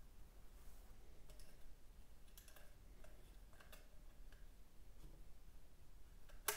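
Faint, scattered clicks as a screwdriver works the split bushing off a KYB fork's inner tube, with one sharper click near the end.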